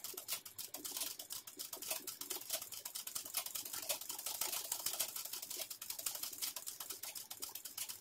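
Ordinary domestic sewing machine stitching at speed, its needle making a rapid, even run of clicks while a satin-stitch fill is sewn in free-motion embroidery.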